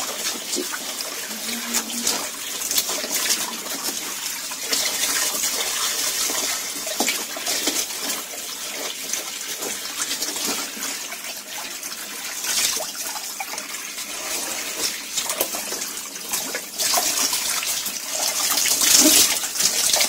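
Water from a garden hose spraying and splashing onto the drain filter at the bottom of a washing machine tub, rinsing out the lint that had clogged the drain.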